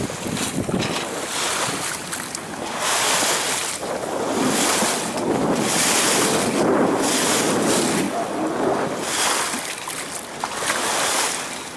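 Wind buffeting the microphone over the wash of the sea around a sailboat under way, rising and falling in gusty surges of hiss every second or two.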